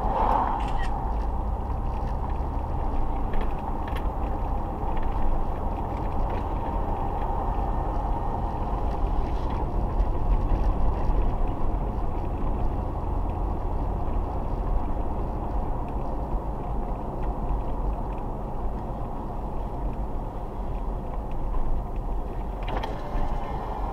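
Steady road and tyre noise with engine hum inside a moving car's cabin, with a few light clicks in the first few seconds.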